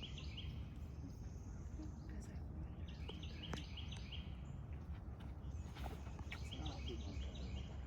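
A songbird singing a short phrase of quick repeated high notes three times, over a steady low outdoor rumble.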